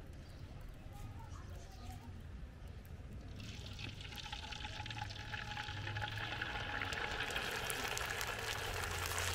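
Papor (thin lentil wafer) frying in a large wok of hot oil: a crackling sizzle starts about three seconds in as the wafer goes into the oil and grows louder. A low steady hum runs underneath.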